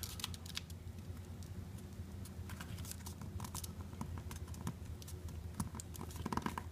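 Sheet of printer paper being folded and creased flat by hand: faint, scattered rustles and small ticks of fingers pressing and sliding on the paper, busier near the end, over a steady low hum.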